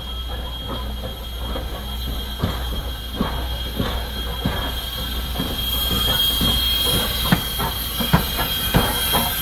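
Steam locomotive No. 89 running light at slow speed and drawing closer, its wheels clicking and clanking over the rail joints, louder and more often as it nears. A hiss of steam joins about halfway through.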